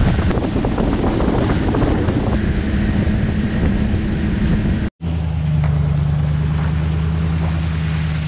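Motorboat running at speed: outboard engine drone mixed with wind buffeting the microphone and water rushing past the hull. After an abrupt cut about five seconds in, a steadier, lower engine hum.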